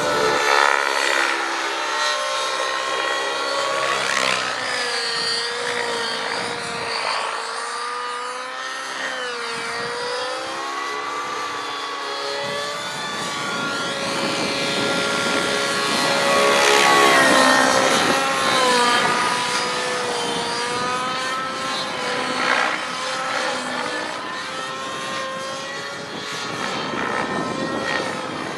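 Align T-Rex 700 radio-controlled helicopter flying aerobatic manoeuvres: the drivetrain and rotor blades whine in a pitch that keeps rising and falling as the load changes. It swells loudest about two-thirds of the way through.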